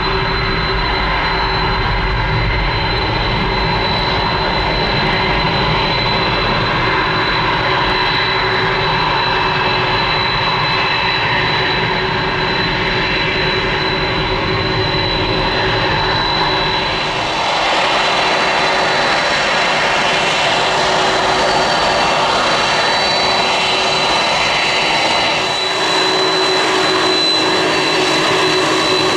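Boeing 747-400's four General Electric CF6 turbofans running at taxi power as the jumbo jet taxis toward the microphone: a steady jet rush with a high whine and a lower hum held throughout.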